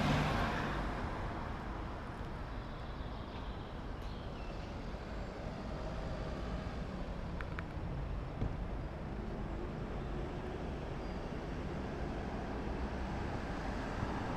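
Street traffic noise: a steady low rumble of vehicles, with a couple of brief clicks about seven and a half and eight and a half seconds in.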